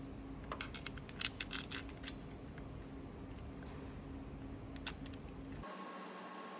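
Light metallic clicks and clinks of a tool and bolt on the engine's timing belt tensioner being fitted by hand: a quick run of them about half a second to two seconds in, then a couple more near five seconds. Under them is a steady low hum that cuts off abruptly near the end.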